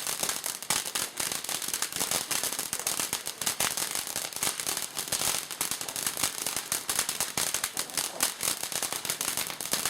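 A firework crackling: a dense, unbroken stream of rapid small pops and cracks that goes on evenly without a break.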